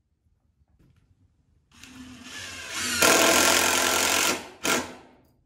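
Power drill driving a screw into the wooden frame of a sifter box: one long run of the motor that gets louder partway through as the screw bites, then a short final burst to seat it.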